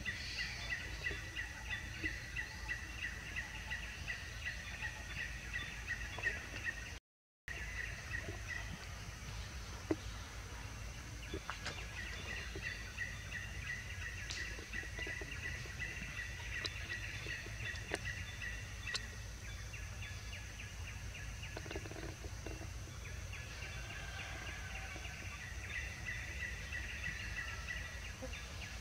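Forest ambience: a steady, fast-pulsing high chirring that runs throughout, over a low background hum. It breaks off in a brief silence about seven seconds in, and a few faint clicks sound later.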